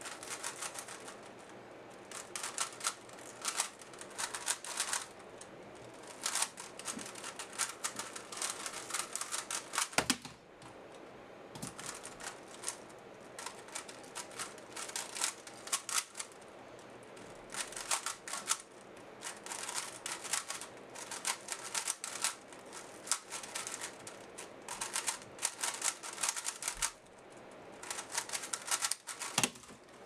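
Rubik's cube being turned fast: rapid plastic clicking in bursts with short pauses between. About ten seconds in a single sharper knock stands out, the keyboard spacebar hit to stop the solve timer.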